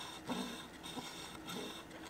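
Faint, scattered clicks and scrapes of a metal scraper blade working against a thick slab of ice.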